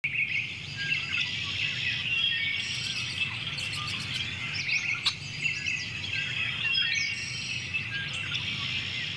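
A dense chorus of many birds chirping and calling at once, over a steady low hum.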